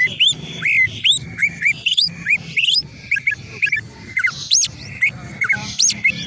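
Cucak ijo (greater green leafbird) singing a fast, varied run of short whistled notes, each sweeping up and over, several a second and jumping between pitches, in the rough 'isian kasar' style used as a masteran song.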